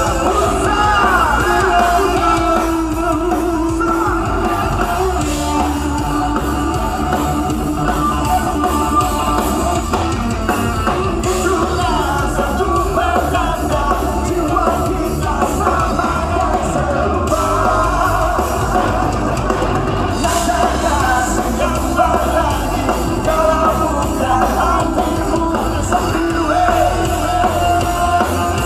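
Live rock band playing on a concert stage, with singing over drum kit and amplified instruments.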